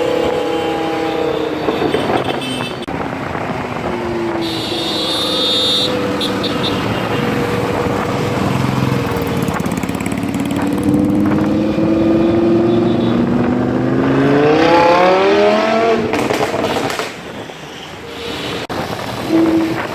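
Lamborghini Huracán V10 with a Fi aftermarket exhaust: the engine note dips, climbs slowly, then rises steeply as the car accelerates hard about fifteen seconds in, and falls away sharply a couple of seconds later.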